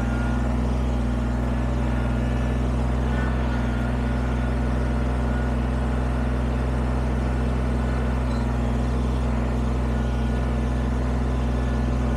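Kubota BX23S sub-compact tractor's three-cylinder diesel engine running steadily at a low, even speed.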